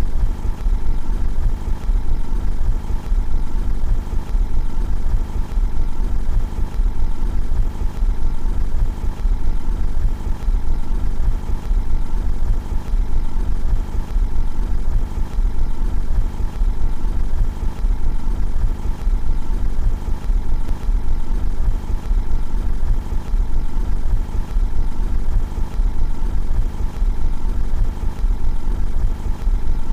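Car engine idling steadily, heard from outside the car, with an even low drone and no revving.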